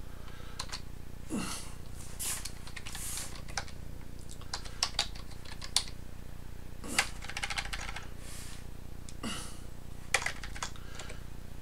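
Computer keyboard keys tapped in several short bursts of clicks, as a word is typed into a search box and partly backspaced.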